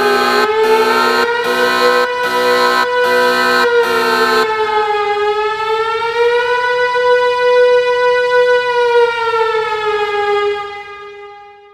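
A loud siren-like droning tone with many overtones, slowly wavering up and down in pitch. For the first four and a half seconds a pulsing, rhythmic noise layer runs under it, then cuts out. The tone fades away near the end.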